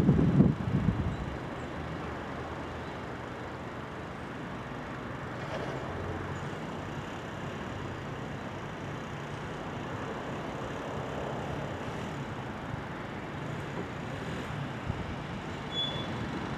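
PKP EP07 electric locomotive hauling passenger coaches, approaching slowly with a steady rumble of wheels and running gear. A brief louder low rush sounds in the first second.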